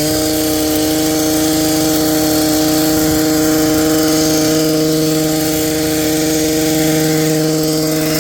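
Electric hedge trimmer running at a steady, even pitch while the top of a shrub is levelled.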